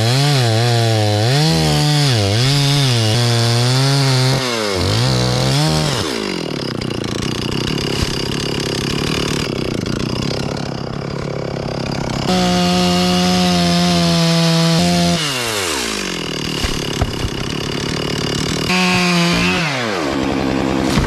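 Chainsaw cutting wood, its engine speed wavering up and down under load for the first six seconds. It then settles lower and later runs at steady full throttle twice, for about three seconds and then about a second, dropping back between.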